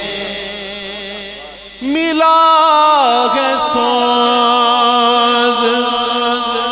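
Male naat reciter singing a long, ornamented held note over a steady drone; the voice comes in about two seconds in after a quieter stretch of drone alone.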